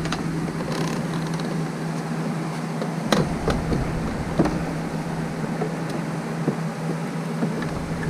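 A few light, sharp plastic clicks and taps as a tail-light wiring harness and its plastic insert are handled and plugged together, over a steady low hum.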